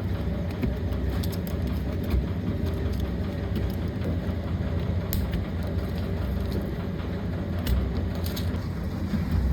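Ice cream factory machinery running with a steady low drone, with a few sharp clicks over it.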